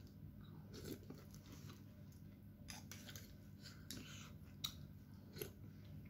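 A person faintly chewing a mouthful of instant noodles and meatballs, with a few short, soft clicks scattered through it, over a low steady hum.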